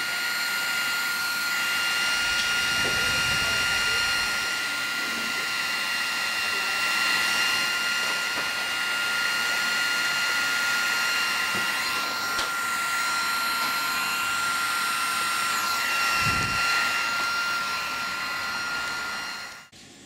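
Battery-powered BBQ fan blower running: a small electric motor and fan whining steadily, with air hissing through the stainless steel tube. It cuts off just before the end.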